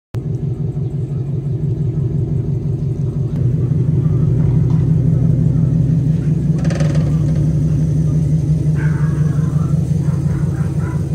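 Lexus IS F's 5.0-litre V8 idling steadily with a deep, even exhaust note, and a short burst of noise about seven seconds in.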